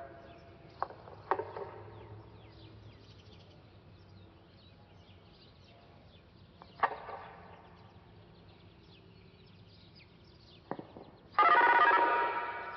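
A loud ringing tone with several steady pitches starts suddenly near the end and fades over about a second. Before it there are only a few brief sounds and faint high chirps over a low background.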